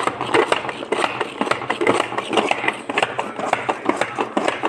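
Hand-operated food chopper being worked, its spinning blades and bowl giving a fast, irregular clatter of clicks and knocks.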